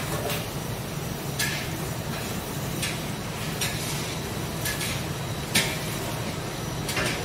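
Scattered clinks and clatters of metal kitchen utensils, roughly one a second, over a steady background din. The loudest clatters come about halfway through and near the end.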